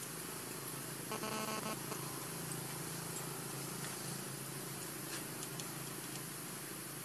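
One short, steady-pitched macaque call about a second in, lasting under a second, over a steady background hiss. A few faint clicks follow later.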